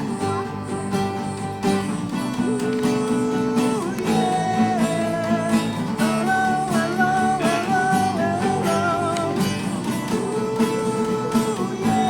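Acoustic guitar strumming a steady accompaniment under a held melody line that slides and wavers in pitch, as an instrumental interlude between verses of a worship song.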